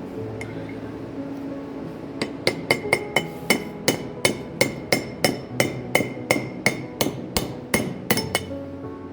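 Sharp metallic knocks with a ringing edge, evenly spaced at about three a second, starting about two seconds in over a steady mechanical hum.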